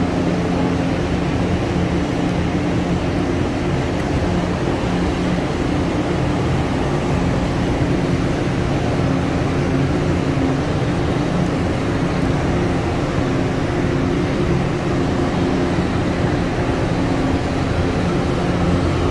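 Inside a moving Mecca Metro train carriage: a steady rumble of the train running on its elevated track, with an even low hum under it.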